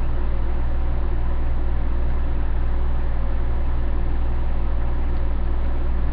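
Steady low hum with an even hiss over it. It is unchanging throughout, with no distinct clicks or knocks.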